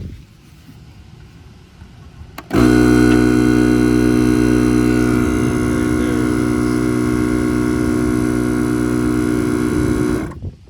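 Small electric air compressor switching on about two and a half seconds in and running loud and steady at one pitch while it inflates air-spring helper bags, then cutting off suddenly near the end as it reaches its preset 5 psi.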